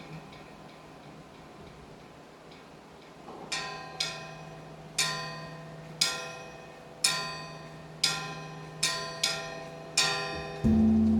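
A small metal chime is struck about once a second, the strokes coming closer together toward the end, each ringing out bright and fading. About ten and a half seconds in, the large bronze Buddhist temple bell (beomjong) is struck once and starts a loud, deep, humming ring.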